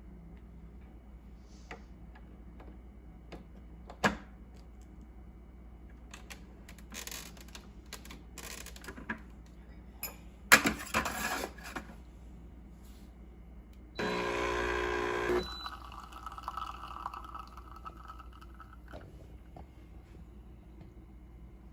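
Semi-automatic espresso machine being worked: scattered clicks and knocks of parts being handled, a sharp knock and then a clatter, then a loud steady buzz of about a second and a half from the machine's pump, followed by a quieter steady running sound that stops a few seconds later.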